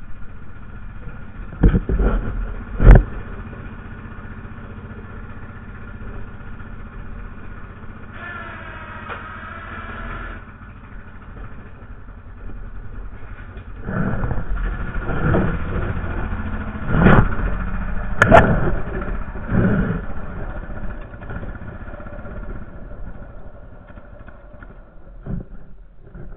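Honda Foreman 450 ATV's single-cylinder engine running steadily, with two loud knocks near the start and a run of knocks and thumps about halfway through.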